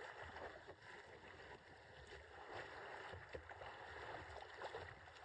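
Faint, steady rush of river water past a kayak's bow as it runs a riffle, with small splashes against the hull.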